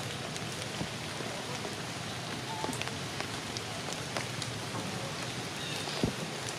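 Steady patter of rain falling on forest leaves, dotted with small drip clicks and a few faint short chirps, with a single low thump about six seconds in.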